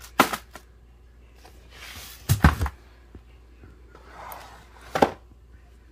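Cardboard firework boxes being handled and set down on a wooden floor: a sharp knock, a heavier thud about two and a half seconds in, and another knock near the end.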